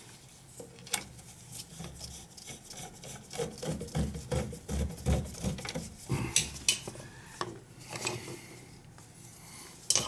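Gloved hands working on an oil burner's motor and pump assembly: irregular rubbing and scraping with scattered small metallic clicks and knocks.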